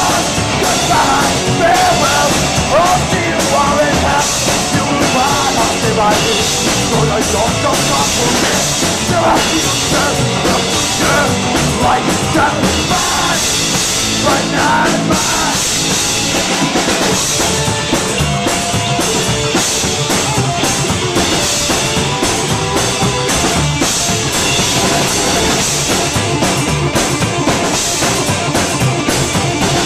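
Live rock band playing loudly through a passage with no vocals: a full drum kit with constant cymbal wash, under a lead line that bends up and down in pitch in the first half.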